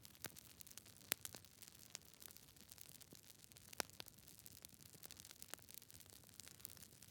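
Fire crackling: a steady scatter of small pops and snaps over a faint hiss, with louder pops about a second in and near four seconds.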